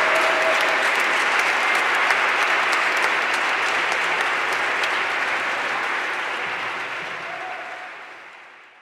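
Audience applauding, fading out over the last few seconds.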